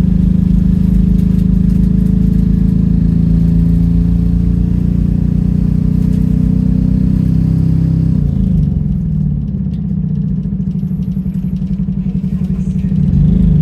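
Bus engine at the rear heard from inside the passenger saloon: a loud, steady drone as the bus drives. About two-thirds of the way through it eases off and shifts in pitch, then picks up again near the end.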